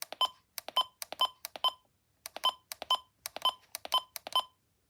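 Buttons on a weather radio pressed one after another. Each press is a click followed by a short electronic key beep, about nine presses at roughly two a second, with a brief pause near the middle, as the radio's alert-settings menu is stepped through.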